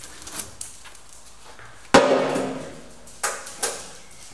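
Welding magnets being taken off a sheet-steel panel and set down on the metal: a few light clicks, then a loud metallic clank about halfway through that rings on for a second, and two lighter knocks close together near the end.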